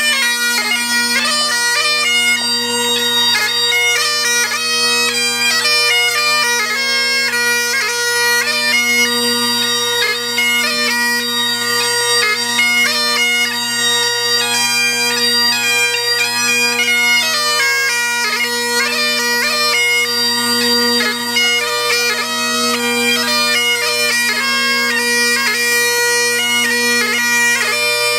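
A bagpipe playing a march tune: the chanter's melody moves over a steady, unbroken drone.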